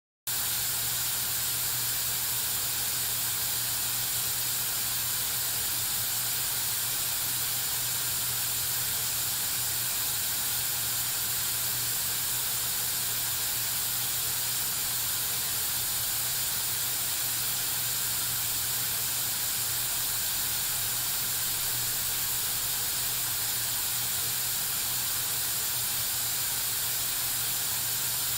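White-noise test signal played through a Sony SRS-XB22 Bluetooth speaker with EXTRA BASS mode on: a steady, even hiss that starts right at the beginning and holds at one level throughout.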